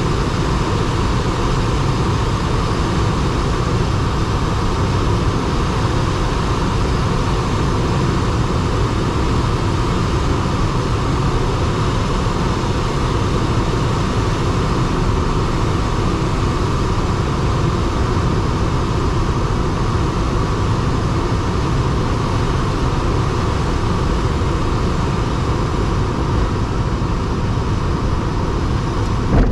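Steady rush of air around the cockpit of a DG303 glider, which has no engine, on final approach to landing; the glider is rolling on the grass strip by the end.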